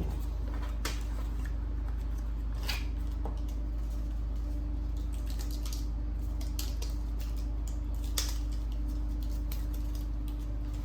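Steady low electrical hum with a few light clicks from small parts being handled.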